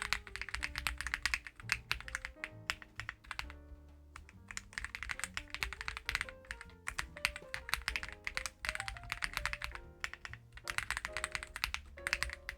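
Fast, continuous typing on a Reborn67 gasket-mounted mechanical keyboard, a clacky run of keystrokes broken by two short pauses, with background music underneath.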